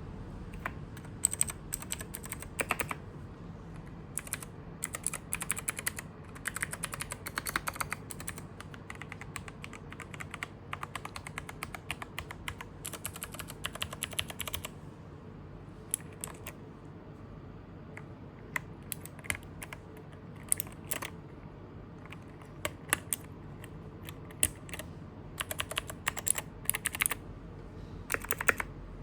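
Typing on a Keychron Q5 mechanical keyboard with Gateron Pro Blue and Gateron Pro Brown switches: key clicks in fast runs during the first half, then mostly scattered single presses and short bursts.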